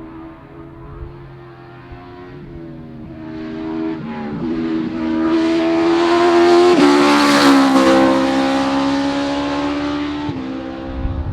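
2000 Future Racer FR race car accelerating hard up a hillclimb course, its engine note climbing and stepping down with gear changes. It grows much louder as it approaches, is loudest a little past the middle as it passes close, then eases off.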